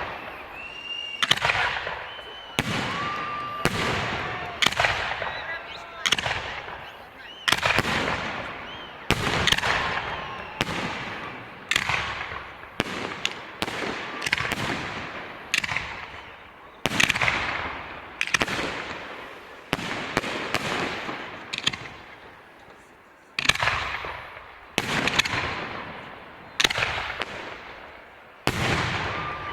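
Fireworks display: aerial shells bursting one after another, about one loud bang every second or so, each dying away in a long echoing tail.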